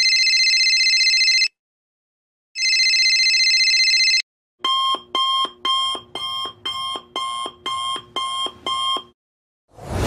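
A telephone rings twice, each ring lasting under two seconds with a pause of about a second between them. Then an alarm clock beeps about ten times, roughly two beeps a second. A swoosh starts at the very end.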